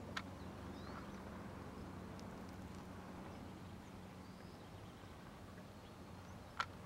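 Faint open-air ambience with a low steady hum and a few faint bird chirps, broken by two sharp clicks, one just after the start and a louder one near the end.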